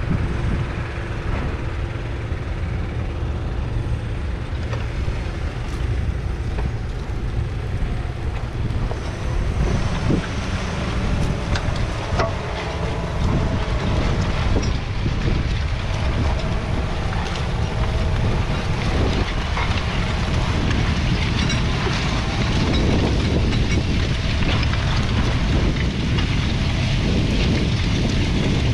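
John Deere 6215R tractor's 6.8-litre six-cylinder diesel engine running steadily while pulling a six-furrow reversible plough, with wind buffeting the microphone. It grows a little louder in the second half.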